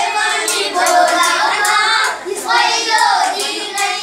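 Children's voices singing a Nepali lok dohari folk song together, with a few sharp hand beats keeping time.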